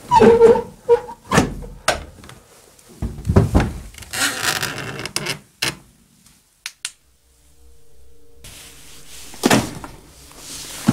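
An old door's metal slide bolt being worked and the door pulled open, with knocks, scrapes and rattles and a brief squeak at the start. After a quiet spell there is more scraping and a knock near the end.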